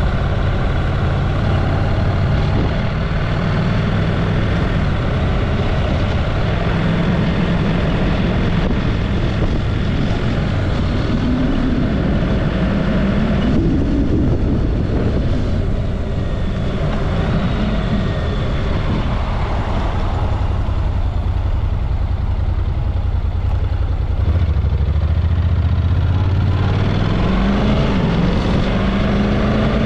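Honda motorcycle engine running on the move, a steady low drone under wind and road noise. Its pitch rises and falls with the throttle, drops low about two-thirds of the way through, then climbs again near the end.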